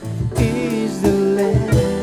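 Live worship music from a small band: digital piano and acoustic guitar with bass guitar, and a voice singing over the chords.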